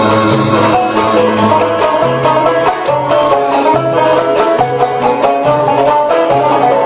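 Algerian chaâbi ensemble playing an instrumental passage, quick melodic runs on plucked string instruments over a steady bass line, with sharp plucked or percussive strokes throughout.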